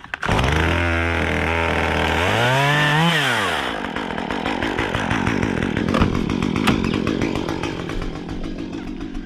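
Stihl chainsaw running at idle, then revved once about two seconds in, the pitch rising and dropping back, then running on with a rougher, noisier sound.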